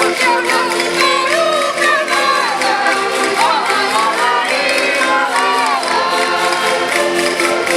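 Women's voices singing a Minho desgarrada verse over concertinas (diatonic button accordions) holding steady chords.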